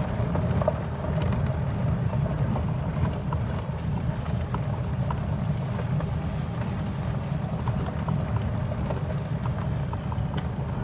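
A small vehicle driving slowly along a dirt track, its motor and tyres making a steady low rumble with faint ticks from the track.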